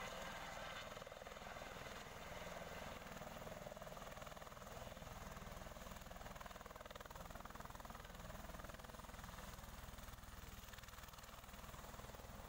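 A light helicopter's engine and rotor running steadily as it touches down, then turning on the ground.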